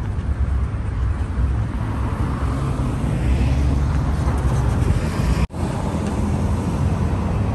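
Street traffic noise: a steady rumble of passing cars, which cuts out for an instant about five and a half seconds in.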